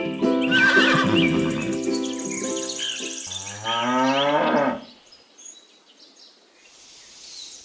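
Cow mooing once, a single call lasting about a second and a half, just after light plucked-string background music stops about three seconds in. Only faint sounds follow.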